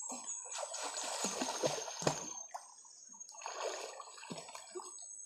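River water splashing and sloshing around people swimming close by, in uneven bursts: a longer stretch over the first two seconds or so with a sharp slap near its end, then a shorter one about four seconds in. A faint steady high whine runs underneath.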